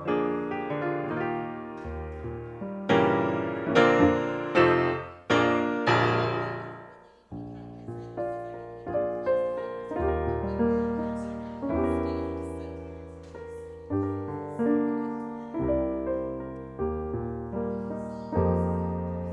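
Piano playing chords, starting suddenly. Several loud struck chords come about three to six seconds in, each ringing and fading away, followed after a brief pause by steadier, softer chord playing.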